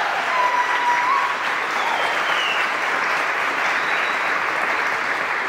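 Audience applauding in an auditorium hall right after a dance ends, a dense steady clapping with a couple of high whistles over it.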